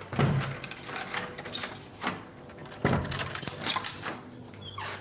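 Rustling and clattering handling noise close to a phone's microphone, in two louder bursts, one right at the start and one about three seconds in, with some light jingling among it.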